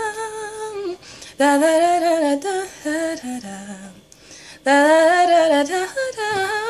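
A woman's voice singing a cappella, humming the melody without words in three sustained phrases with short pauses between them.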